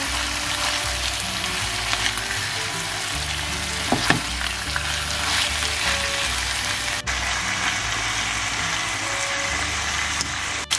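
Pollock strips with onion, carrot and bell pepper sizzling steadily in sunflower oil in a nonstick frying pan, stirred with a silicone spatula. A short sharper knock comes about four seconds in.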